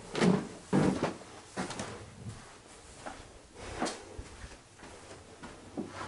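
A handful of irregular knocks and thumps, a couple close together at the start and more spread out after, from someone moving through an empty room with a handheld camera.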